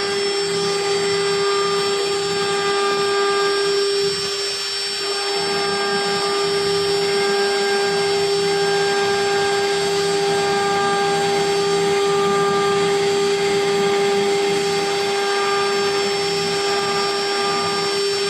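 CNC machine spindle running steadily with a high, even whine while cutting, dipping briefly about four seconds in.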